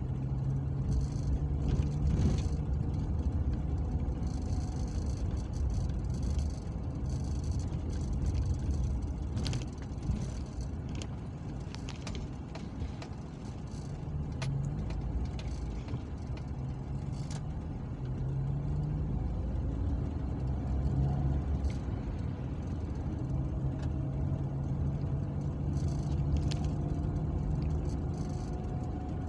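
Car engine and road noise heard from inside the cabin while driving slowly along a street, a steady low hum that rises and falls a little in pitch, with a few light clicks and rattles.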